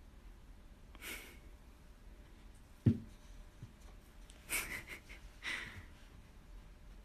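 A cat climbing out of a wall-mounted pod bed onto a wooden wall shelf: one dull thump about three seconds in, then a few short breathy, rustling noises as it squeezes out.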